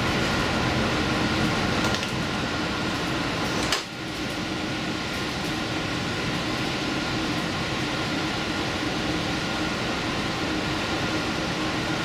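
Train running at speed, heard from inside at the front: a steady rumble with a hum of several steady tones. It drops a little about two seconds in, and there is a sharp click just under four seconds in, followed by a brief dip in level.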